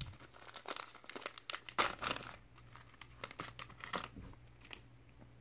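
Foil wrapper of a 2008-09 SkyBox basketball card pack crinkling and tearing as it is ripped open and the cards pulled out. The irregular crackles stop a little before the end.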